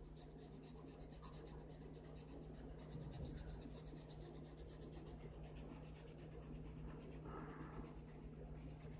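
Faint scratching of a No. 2 graphite pencil on drawing paper in quick, short strokes, laying down beard texture, over a steady low electrical hum.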